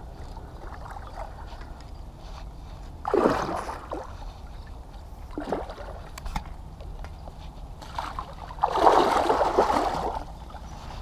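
Hooked snakehead splashing at the surface in shallow water at the bank. There are two louder bouts of splashing, a short one about three seconds in and a longer one near the end, with smaller splashes between.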